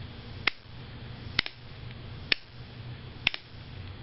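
DIY SpikerBox's small amplifier speaker clicking each time the power is cycled, with nothing attached: four sharp clicks about a second apart, some doubled, over a low steady hiss. The click at each power switch is the sign that the assembled SpikerBox is working.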